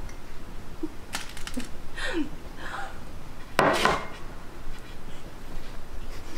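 Table sounds of a meal, light clicks of chopsticks and dishes, with a few short voice sounds. About three and a half seconds in, a man lets out one sudden, loud, breathy burst of laughter.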